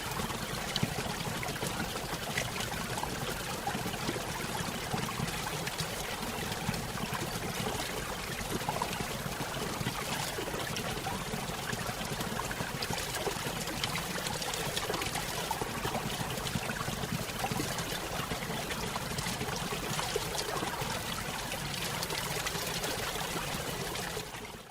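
Small waterfall spilling into a stream: a steady rush of falling water with small splashes and trickles, cutting off suddenly at the end.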